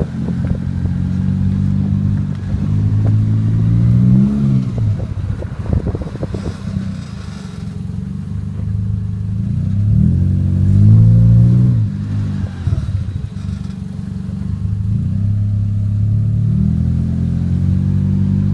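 1996 Toyota Celica moving slowly, its engine running and rising in pitch twice as it pulls away, about four seconds in and again around ten seconds. Intermittent clicking and scraping sounds are heard in between; the owner says the driver-side front wheel creaks and grinds when the car turns left, worse the harder the wheel is turned.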